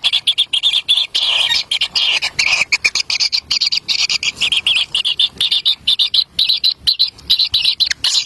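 Kingfisher chicks calling in a rapid, continuous stream of high chirps, begging for food at the nest.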